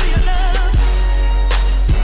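Background music with a deep bass line, a wavering melody and drum hits.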